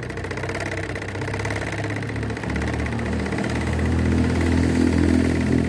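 Engine sound of a battery-powered miniature walk-behind paddy tractor, built to sound like a diesel, being revved: it runs at idle, then the note steps up about two and a half seconds in and climbs again a little later.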